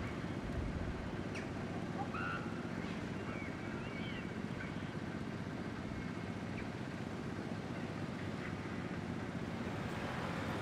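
Steady outdoor rumble of distant road traffic, with a few faint, short high chirps in the first four seconds.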